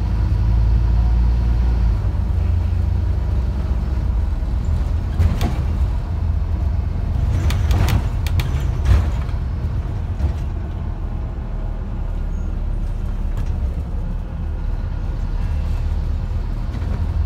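Scania OmniCity single-decker bus heard from inside the cabin while under way: a steady low engine and road rumble, with a few sharp knocks and rattles about five seconds in and again around eight to nine seconds.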